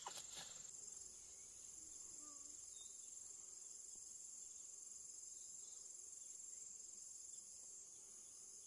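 Faint, steady high-pitched insect chorus trilling without a break, with a couple of light clicks at the very start.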